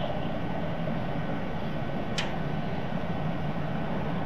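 Steady low background rumble, with a single sharp tick about two seconds in.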